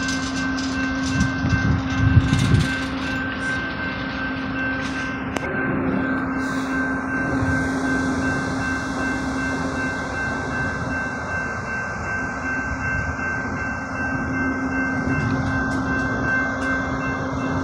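Amtrak passenger train cars rolling past along the track. The wheels clack over the rail joints in the first few seconds, with a steady whine running underneath throughout.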